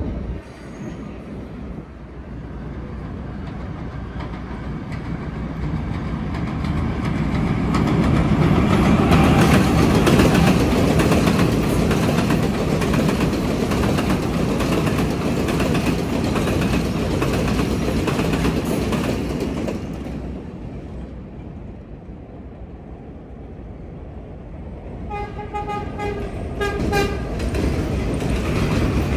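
A New York City subway train of R188 cars running on the Flushing Line's elevated track, its wheel and motor rumble building to a peak about a third of the way in and then dying away. Near the end the train's horn sounds a quick series of short toots.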